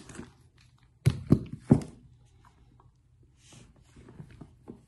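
A leather crossbody bag and its detachable strap being handled. There are three quick knocks about a second in, as the strap and its metal clips are pulled out and laid on the table, then faint rustling of the leather.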